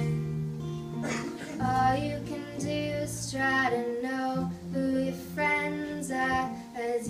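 A young woman singing a slow melody while strumming an acoustic guitar, with an electric guitar playing along underneath.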